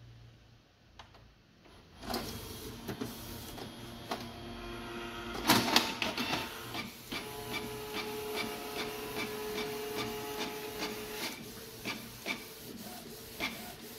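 Canon PIXMA G3010 inkjet printer starting up after a button press and feeding a sheet through. Its motors and rollers click and whir, with a loud clatter a little before the middle, a steady motor whine for a few seconds after that, and scattered ticks near the end. It is printing normally again once the paper jam has been cleared.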